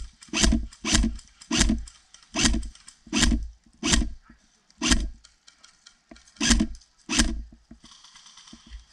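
Airsoft rifle firing single semi-automatic shots, about ten in all at an uneven pace. There is a gap of about a second and a half before the last two shots, which stop about seven seconds in.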